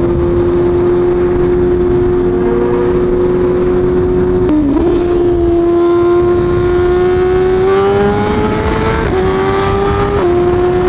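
BMW M1000RR inline-four engine running under way, with a dense rush of wind noise. Its pitch holds steady, dips briefly about halfway, then climbs gradually and drops twice in small steps near the end, like upshifts.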